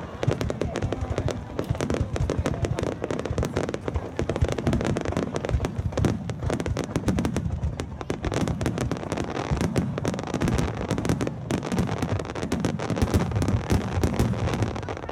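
Fireworks display: a rapid barrage of aerial shells bursting, with many bangs and crackles piling over one another with no break.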